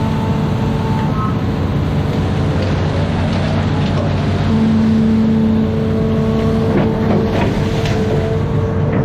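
Amphibious excavator's diesel engine running steadily with a steady whine that grows louder about halfway through, and a few short knocks near the end.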